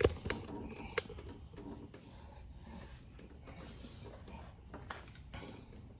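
A few light clicks and knocks with faint rubbing between them, the sound of small mechanical parts being handled; no engine is running.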